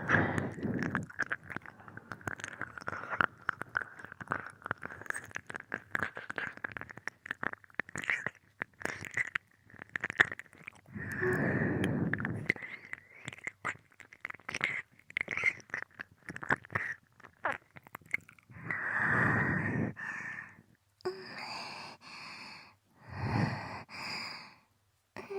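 Close-miked binaural ear-licking: a steady run of wet mouth clicks, smacks and licks at the ear, with several slow breaths heard in the second half.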